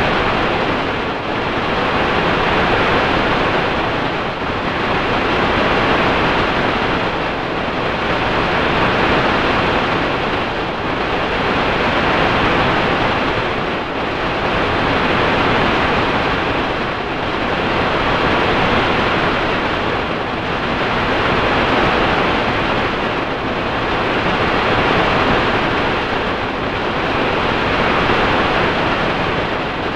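Digitally processed rushing noise with no clear tones, swelling and easing about every three seconds in a steady rhythm, from audio put through a 4ormulator V451 effect.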